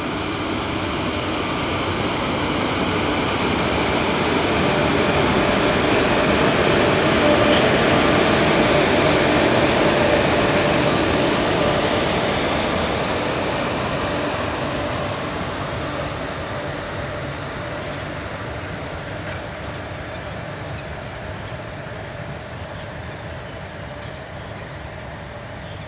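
Passenger train of ICF coaches hauled by a WAP-4 electric locomotive, pulling out and running past: a loud rolling rumble that swells to a peak about a third of the way through, then slowly fades.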